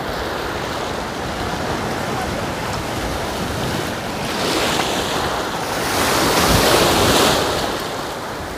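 Small sea waves breaking in the shallows and washing up onto a sandy shore, rising to a louder crash and hiss of foam about halfway through, then easing off.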